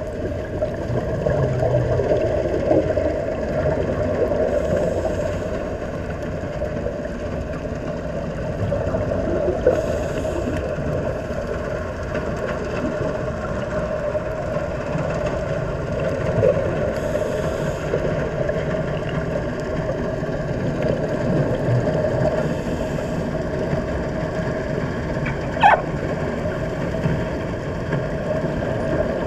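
Underwater sound heard through an action camera's waterproof housing: a steady, muffled low rumble and hiss. Every five to six seconds there is a brief higher hiss of a diver's exhaled regulator bubbles, and near the end a short sharp rising chirp.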